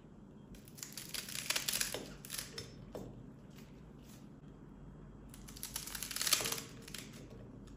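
A small knife cutting through crisp spinach roots and stems, two crackling bursts of cuts, about a second in and again around six seconds, the second the louder.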